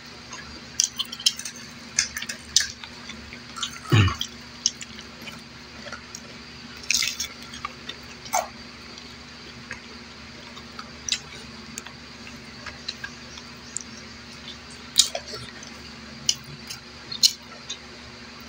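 Eating sounds of a meal taken by hand: irregular, wet clicks and smacks of chewing, with one louder low knock about four seconds in, over a steady low hum.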